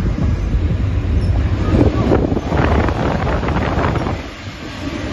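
Locomotive cab noise: a steady, loud rumble of the locomotive running on the track, heard from inside the cab, with wind buffeting the microphone. It eases briefly near the end.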